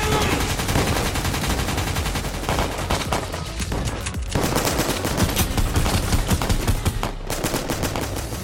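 Rapid automatic rifle fire in a gunfight, shot after shot in long bursts, with short breaks about four and seven seconds in.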